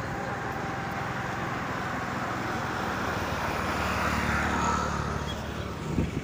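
Steady engine and road noise of a moving vehicle, heard from on board, growing a little louder about four seconds in.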